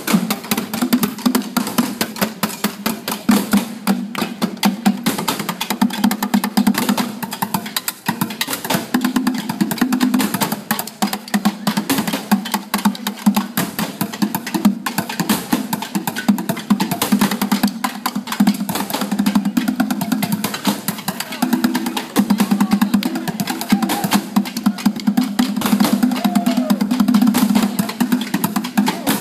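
A street percussion troupe drumming with sticks on plastic barrels and metal pots worn as drum kits: a fast, dense stream of hollow strikes.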